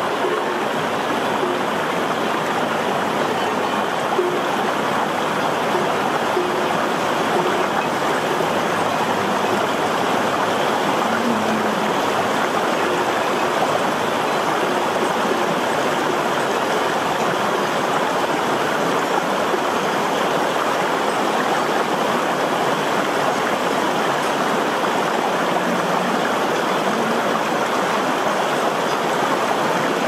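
A shallow rocky stream rushing over stones, a steady, even rush of water.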